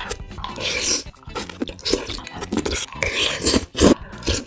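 Close-miked eating sounds: a person chewing and working food in the mouth, in irregular wet bursts several times a second.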